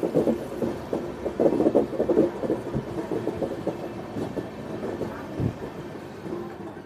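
Train wheels clattering over the rails in a dense run of knocks that grows fainter toward the end.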